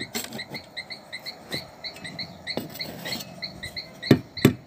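A knife blade scraping and knocking at old, dried-out glue around a pipe fitting on a plastic water tank, in short strokes that grow louder and come about three a second near the end. A rapid high chirping call repeats in the background.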